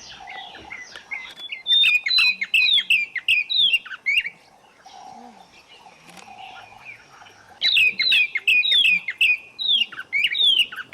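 A bird calling in two bouts of rapid, repeated notes that each slide downward in pitch, each bout lasting about two and a half seconds, with a quieter pause between them.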